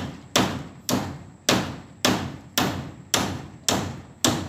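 Steady, repeated strikes, about two a second, from a pair of pliers used as a hammer on the joint where a wooden brace pole crosses a papaya trunk. Each blow is sharp, with a brief ringing tail.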